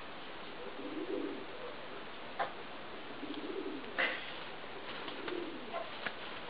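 Domestic pigeon cooing: three low coos about one, three and a half and five seconds in. A few sharp clicks come between them, the loudest about four seconds in.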